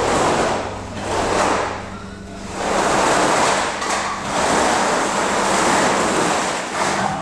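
A sackful of scallops being tipped out onto a metal-topped table, the shells clattering and sliding over one another in a rushing stream that surges several times.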